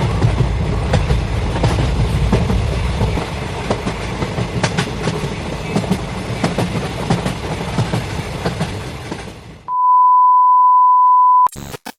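Local train running along the track, a dense rumble with wheels clicking and clattering over the rails, which fades out near the end. It is followed by a steady, loud, single-pitched beep lasting about two seconds.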